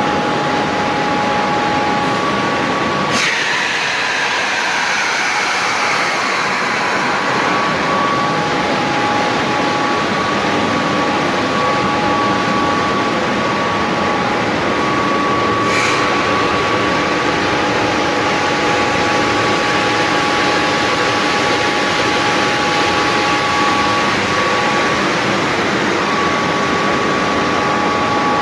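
Ceramic disc vacuum filter installation running: a loud, steady machine noise with two steady whining tones. A sharp click about three seconds in is followed by a tone that slides down in pitch over a few seconds, and another click comes about halfway through.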